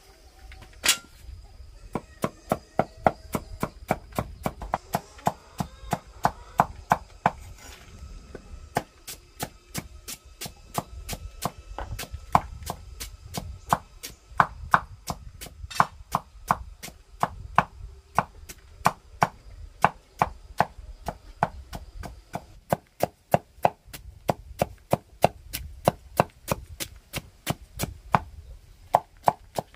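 Knife chopping on a board: a single strike, then steady, even chopping at about three strokes a second from about two seconds in.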